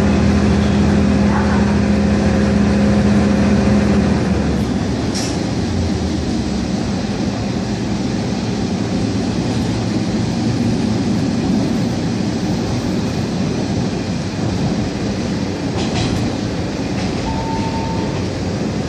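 KiHa 001 diesel railcar in motion: its engine drones steadily, then the engine note drops out about four seconds in and the car runs on with a steady rumble of wheels on the rails.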